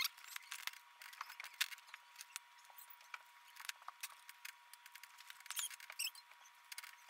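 Small screwdriver backing out the tiny side screws of a laptop LCD panel: scattered light metal clicks and ticks with a few little squeaks, and a faint steady high tone underneath.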